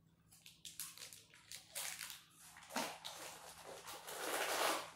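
Clear plastic parts bags rustling and crinkling as hands rummage in a cardboard box, in a run of short crackling bursts that grows loudest near the end.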